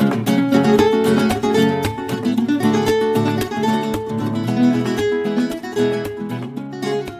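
Background music of acoustic guitar picking and strumming, getting quieter near the end.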